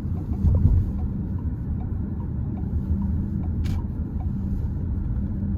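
Steady low rumble of a moving vehicle, with a constant low hum running under it.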